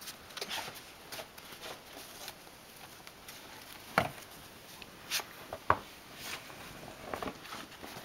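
Snow shovel scraping and crunching through snow on a wooden deck: scattered short scrapes, with a few sharper knocks around the middle.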